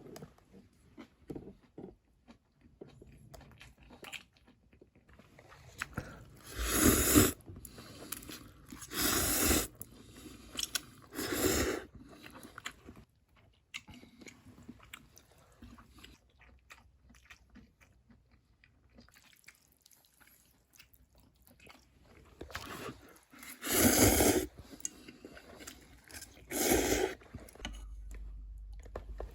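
Close-up eating sounds: someone chewing and biting into gimbap, with many small mouth clicks. Five louder crackling, crunchy bursts stand out, each lasting about half a second to a second.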